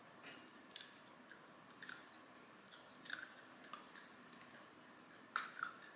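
Jack Russell terrier puppy chewing a crunchy dog treat: faint, irregular crunches, the loudest near the end.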